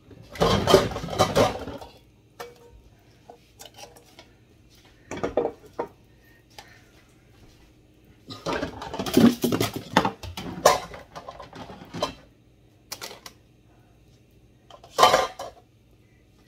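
Kitchen clatter: pots, pans and utensils knocked and set down in several bursts, the longest near the start and in the middle, with a sharp clank near the end.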